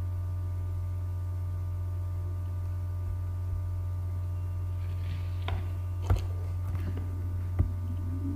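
Steady low electrical hum with a few faint steady tones above it, with three short clicks in the second half.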